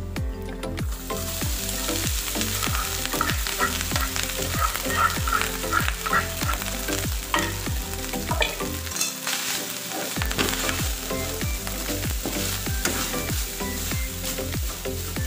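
Minced garlic and cooked rice sizzling in an oiled frying pan while being stirred and tossed with a metal spatula, frying garlic rice (sinangag). The sizzling starts about a second in.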